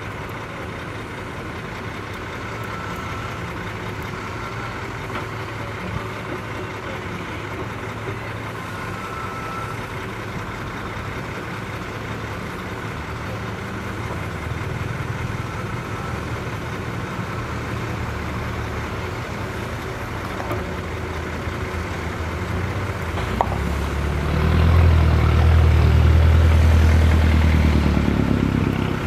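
Heavy diesel engine of construction equipment running steadily at a low idle, then working harder and louder for about five seconds near the end.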